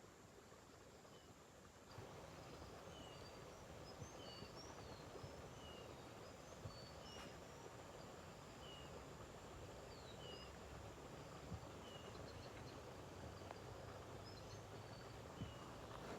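Faint outdoor ambience with small birds chirping: short, high chirps roughly once a second over a soft background hiss.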